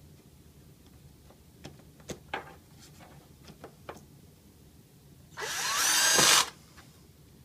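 Power screwdriver running for about a second, its motor whine rising then falling, driving a screw back in. A few light clicks and taps of small parts being handled come before it.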